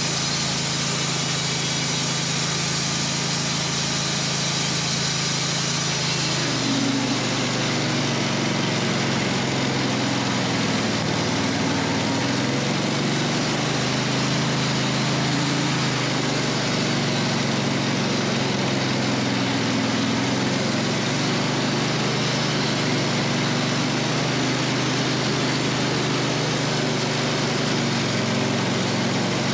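Wood-Mizer LT15 portable band sawmill running at full throttle while its band blade saws a slab from a hard maple log. The engine note is steady at first and turns uneven and wavering about six seconds in.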